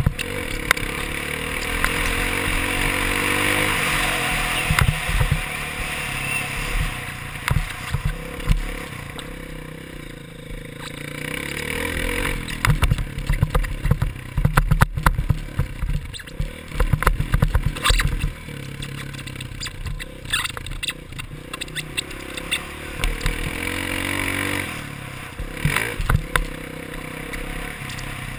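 Dirt bike engine on a motocross track, revving up and down as the rider works the throttle, with steady wind noise on the microphone. Through the middle stretch, repeated sharp knocks and clatter come from the bike going over bumps and jumps.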